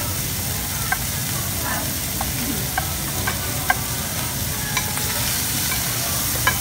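Beef sizzling in a tabletop Korean barbecue grill pan while metal tongs stir and turn it, with a few sharp clicks of the tongs against the pan.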